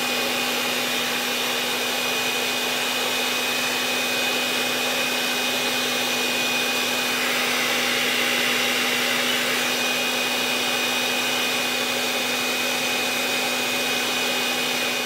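Electric hand mixer running at a steady speed, its beaters whipping heavy cream toward soft peaks. It gives a constant motor hum with a high whine over it.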